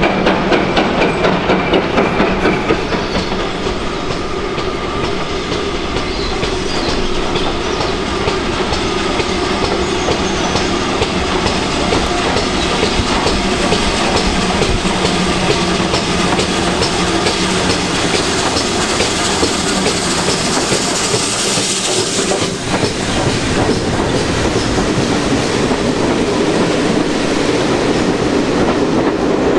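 GWR Hall-class 4-6-0 steam locomotive 6990 working a passenger train: regular exhaust beats for the first few seconds, then a steady rumble and rattle of the engine and coaches running along the track, with clickety-clack from the wheels over the rail joints.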